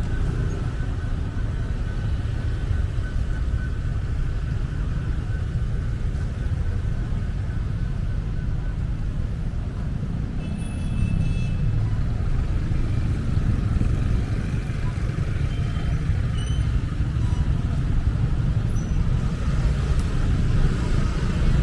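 Steady rumble of city road traffic, cars and heavier vehicles passing, growing a little louder about half-way through. A brief high, pitched tone sounds about half-way through.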